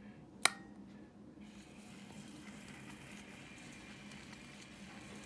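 A single sharp click about half a second in, then the Tradesman 8-inch DC grinder's 130-volt motor and wheel running quietly with a steady low hum and hiss, growing slightly louder over the next second or so.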